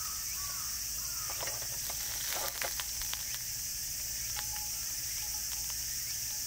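Steady high-pitched insect chorus, with a short cluster of clicks and knocks about two and a half to three seconds in.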